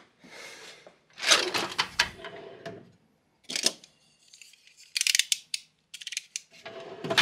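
A metal tool-chest drawer sliding open with tools rattling inside, then a snap-off utility knife's blade slider clicking out in a quick run of ticks; a loud rattle near the end as the drawer is shut.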